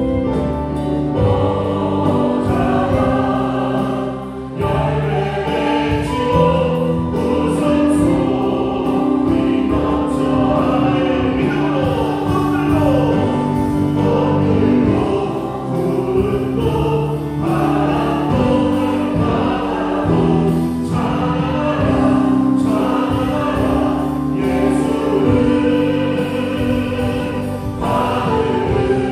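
Church worship band playing a slow hymn: Yamaha Montage 8 keyboard, electric bass guitar and drum kit accompanying a group of voices singing together.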